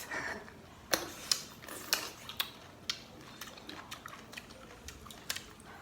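Irregular sharp clicks and crunches of crisp food being bitten and handled, several in the first three seconds and a few more near the end.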